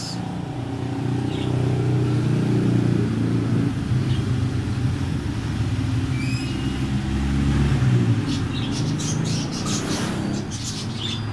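A motor vehicle's engine running close by, a steady low hum that grows louder through the middle and fades after about eight seconds. A bird chirps briefly about six seconds in.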